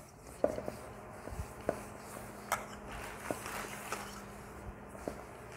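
Hands mixing and rubbing dry whole-wheat flour and semolina with a little water in a stainless steel bowl: soft rubbing and squishing of crumbly dough, with a few scattered light knocks against the bowl.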